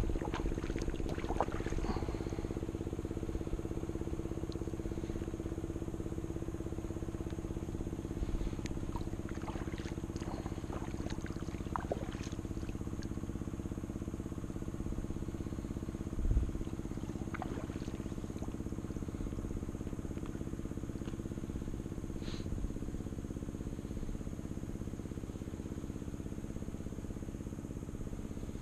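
Kayak paddling on calm water: scattered light splashes and drips from the paddle, and a single dull knock a little past halfway. A steady low droning hum runs underneath.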